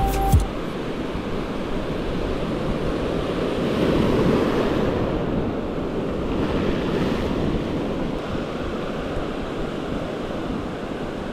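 Ocean surf breaking and washing up a pebble beach, with wind on the microphone. The surf swells about four seconds in and again about seven seconds in.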